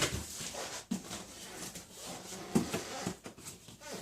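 Cardboard box being opened and its contents handled: scraping and rustling with a few soft knocks.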